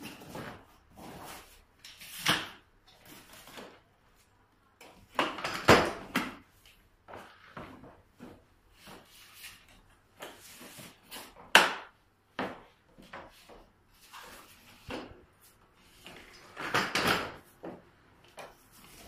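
Clicks, clunks and rattles of a 4-in-1 car seat stroller's folding frame as its wheels are folded away under the seat and then opened out and locked again, with a sharp knock just past halfway.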